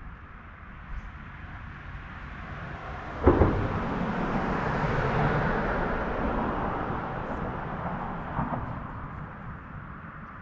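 A vehicle crossing a bridge: a sharp, loud thump about three seconds in, then a rumble that swells and slowly fades, with a lighter thump near the end.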